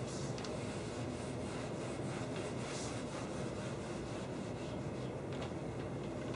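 A whiteboard eraser wiping across a whiteboard in repeated scrubbing strokes, over a steady low room hum.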